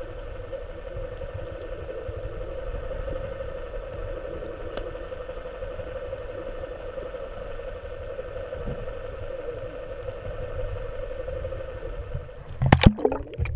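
Boat motor running at a steady speed, a continuous hum, with low wind rumble on the microphone. Loud knocks and bumps come near the end.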